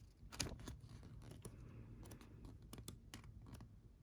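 Faint, irregular light clicks and rustles of hands handling the unboxed items, a small paperback booklet among them.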